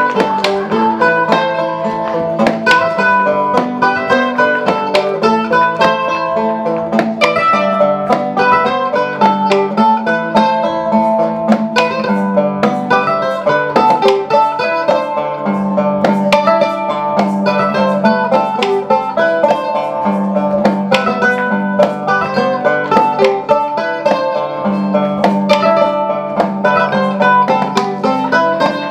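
A folk band playing an instrumental tune live: quick plucked string notes over steady held low notes.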